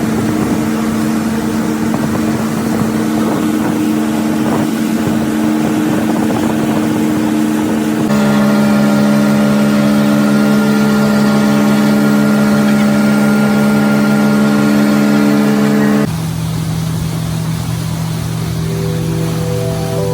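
Boat engine running steadily with rushing noise, stepping up to a louder, higher note about eight seconds in and dropping to a lower, quieter note near the end.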